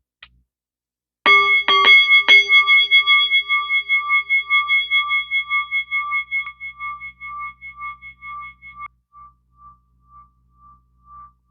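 A bell-like chime struck three times in quick succession, then a long ring that wavers in a steady pulse and slowly fades away.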